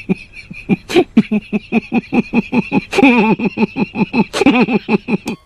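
A man giggling behind his hand: a quick run of short laughs, about four or five a second, over a steady high tone.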